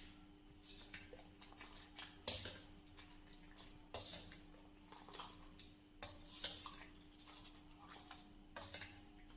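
Faint, scattered clinks and scrapes of a stainless-steel ladle against a steel bowl as thick cooked custard is stirred and lifted, with a few louder knocks spread through, over a faint steady hum.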